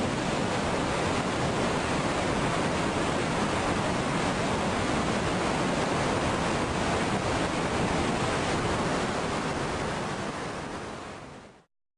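Steady, even rushing noise that fades out about eleven seconds in.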